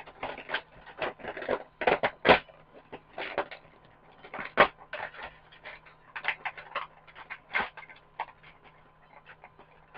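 Irregular plastic clicks, crinkles and rustles from hands unpacking and handling a plastic action figure from its packaging.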